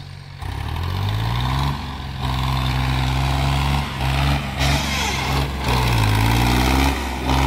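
Powertrac Euro 50 tractor's diesel engine revving hard under load in soft ploughed soil. The note jumps up about half a second in, then rises and falls several times as the throttle is worked and the front wheels lift.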